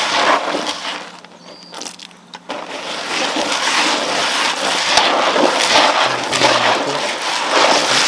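Fish-feed pellets rattling and rustling in a plastic basin as a hand stirs them, made up of many small clicks. It eases off between about one and two and a half seconds in, then picks up again.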